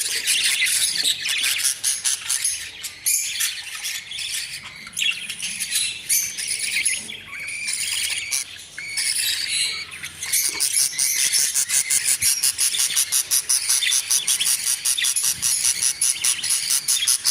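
A flock of budgerigars chattering: dense, continuous high chirps and rapid ticking calls from many birds at once, thinning briefly about halfway through.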